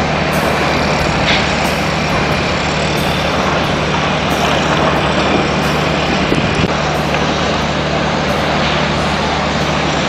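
Heavy construction machinery running steadily on a site where a raft foundation is being poured: a constant low engine hum under a broad rushing noise.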